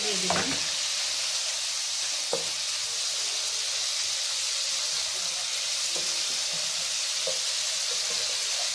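Onion and spice masala sizzling steadily in a nonstick frying pan as it is cooked down, with a few light knocks of a wooden spoon against the pan as it is stirred.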